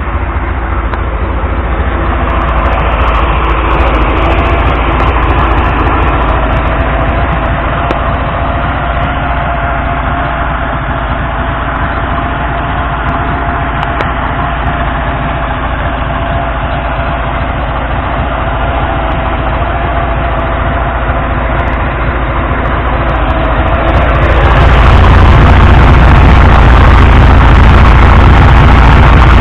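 ZAZ 968M Zaporozhets's air-cooled V4 engine running steadily while the car drives, with a low, constant hum and a faint steady whine. About 24 seconds in it becomes louder and fuller.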